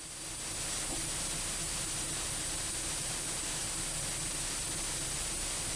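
Steady hiss of a light aircraft's cockpit intercom audio feed, with a thin high tone and a faint low hum underneath, as heard in the headset of a Cessna Grand Caravan between transmissions.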